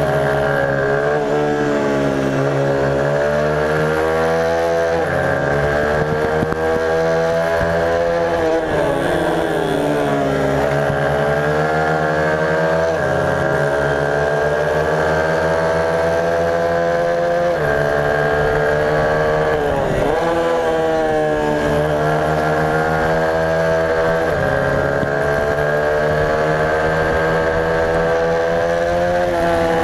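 Racing motorcycle engine heard onboard at race pace, revving up and down through the gears: the pitch climbs under throttle, steps at gear changes and sweeps down sharply on deceleration about twenty seconds in, over a steady rush of wind.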